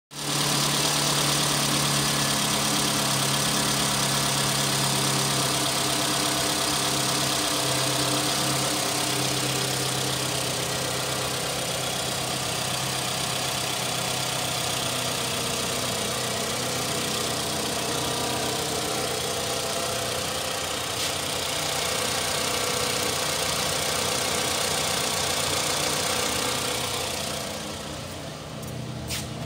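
Toyota RAV4's 2.4-litre 2AZ-FE four-cylinder engine idling steadily, heard close to the engine bay. Near the end it grows fainter, and a couple of clicks are heard.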